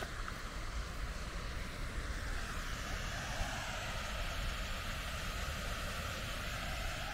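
A distant aircraft passing overhead: a steady rush that swells from about two seconds in and slowly slides in pitch.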